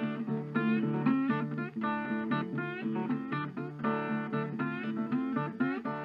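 Background music: an acoustic guitar picking quick runs of notes, many bending upward as they start, over held low notes.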